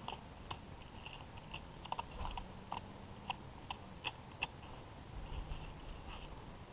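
Faint, irregular scraping and crunching clicks of a butter knife grinding rock salt into the bloodline along a white sea bass's spine, digging out the gook.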